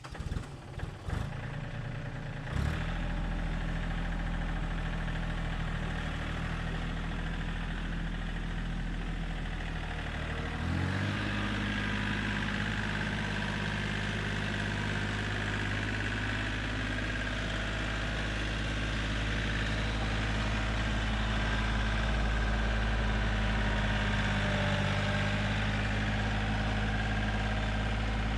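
John Deere tractor engine being started: a few irregular knocks of cranking, then it catches about two and a half seconds in and runs steadily. About eleven seconds in the throttle is raised and it settles at a slightly higher, steady speed.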